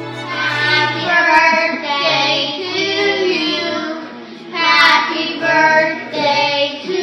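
Young children singing together, their high voices in unison.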